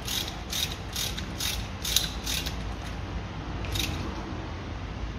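Hand ratchet wrench clicking in quick back-and-forth strokes, about two a second, as a bolt is tightened. The strokes stop about two and a half seconds in, and there is one more near four seconds.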